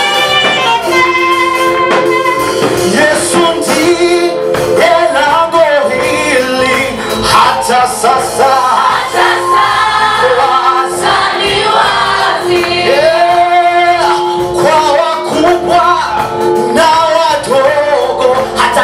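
A choir of men and women singing a Swahili gospel praise song together.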